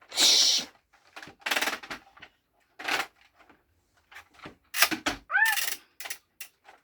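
Hissing water-spray noises made by mouth, in several short bursts, with one brief squeaky rising-and-falling cry about five seconds in.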